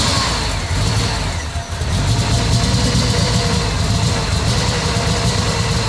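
Flooded Volkswagen Vanagon engine running after a restart, with a brief dip about one and a half seconds in. It is still being brought back to firing on all cylinders as its injectors are plugged back in and the timing is adjusted.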